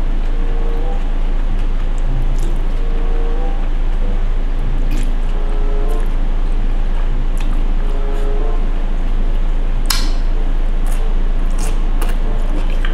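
Someone chewing and eating noodles, with a few sharp clicks of utensils against a bowl, the loudest about ten seconds in, over a steady low mains hum.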